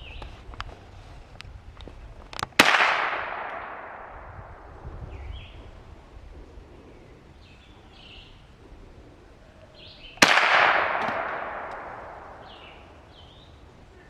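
Two single shots from an H&K MP5 .22 LR, about two and a half seconds in and again about ten seconds in, each a sharp crack trailing off in a long echo. A few light clicks come before the first shot.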